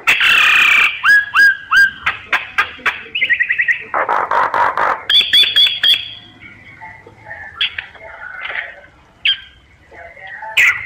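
Myna calling in a varied run: a loud harsh squawk, three quick rising whistles, rapid chattering trills and another harsh burst, then softer gurgling notes and a last whistle near the end.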